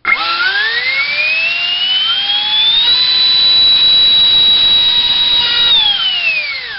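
A 70 mm four-blade electric ducted fan, driven by a GoolRC 2968 3800kV brushless inrunner on a 5S battery, spools up from standstill. Its high whine rises in pitch over about three seconds and holds steady at about three-quarter throttle, then winds down near the end.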